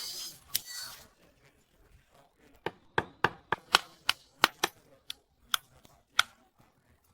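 A run of about a dozen sharp clicks or knocks, irregular at roughly three a second, starting a little under halfway through and stopping shortly before the end.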